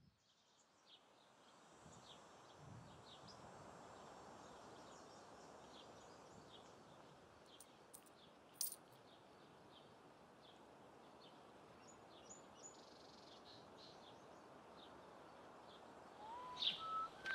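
Faint outdoor ambience: a steady low hiss with small birds chirping throughout, and one short sharp click about halfway through. Near the end a person starts whistling, the first note rising.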